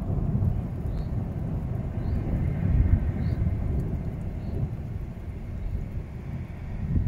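Thunder rumbling low and rolling, loudest about three seconds in and dying away toward the end.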